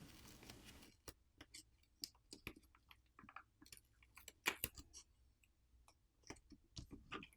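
Faint, scattered clicks and taps of small parts and a tool being handled while a small plastic electronic device is taken apart, irregular and a few a second at most, loudest about two thirds of the way through.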